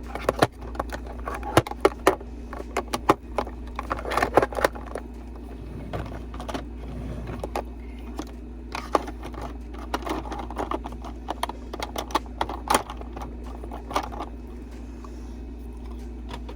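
Makeup powder containers and compacts being handled, clicking and clattering as they are picked up and set down, with scattered light taps and scrapes.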